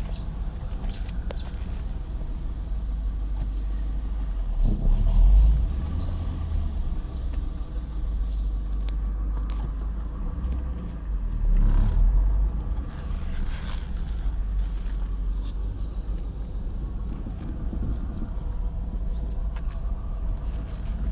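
Engine idling roughly: a steady low rumble that swells louder twice, about five and twelve seconds in.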